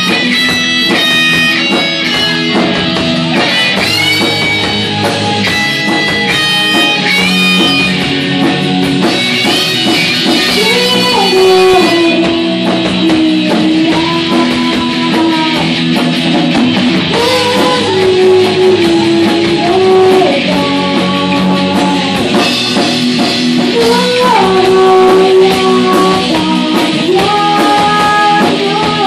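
Live rock band playing: electric guitars over a drum kit, with a held lead melody that slides between notes, pitched high for the first several seconds and lower from about ten seconds in.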